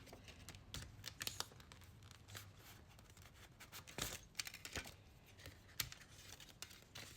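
Faint tearing and crinkling of album packaging being opened by hand, with scattered short rustles and clicks.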